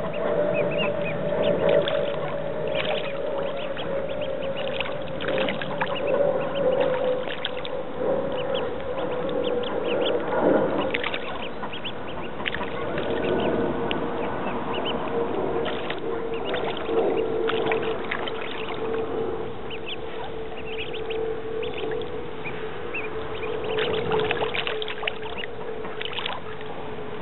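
Mallard ducklings peeping in many short, high notes and splashing as they dive under the water, over a steady background hum that slowly falls in pitch.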